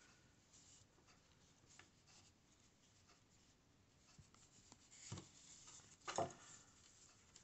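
Near silence with faint rubbing of hands on yarn and crocheted pieces, and two soft bumps about five and six seconds in.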